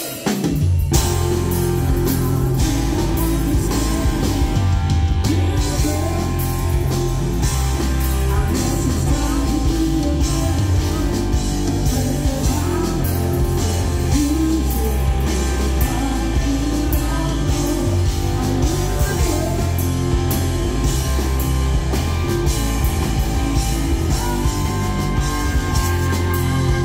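Live rock band playing loud, with a male singer over electric guitar and drums; the band comes in sharply about half a second in after a brief lull.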